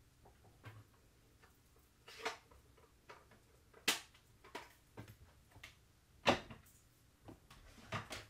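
Scattered clicks and knocks of small craft items being handled and set down on a tabletop, about six in all, the loudest about four and six seconds in.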